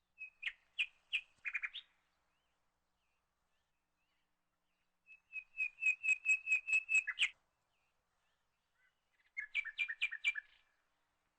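A bird chirping in three short bursts of rapid, evenly repeated high notes, the middle burst the longest at about ten notes.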